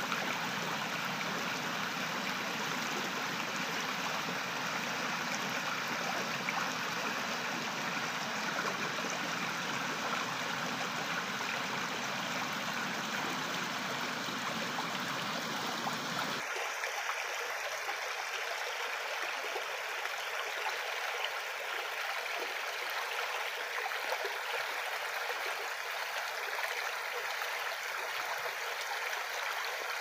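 Shallow creek water running steadily over pebbles and small stones, a continuous splashing rush. About halfway through the deeper part of the sound drops away abruptly, leaving a lighter, higher rush.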